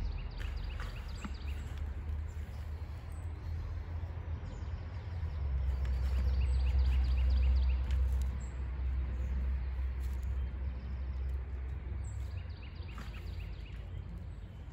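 Outdoor backyard ambience: a steady low rumble that swells in the middle and eases off again, with birds chirping in short, quickly repeated trills three times.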